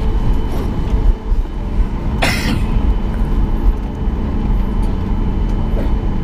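Cabin noise of a Boeing 737 MAX 8 taxiing, its CFM LEAP-1B engines at idle: a steady low rumble with a faint steady whine. A short burst of noise about two seconds in.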